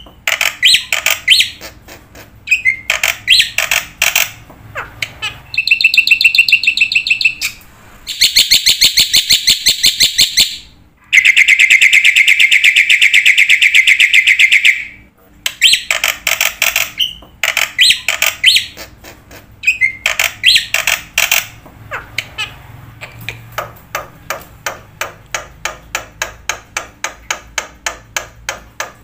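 A bird singing: phrases of rapid high chirps and trills, including a long, loud, fast trill about midway, ending in a long run of evenly spaced sharp notes.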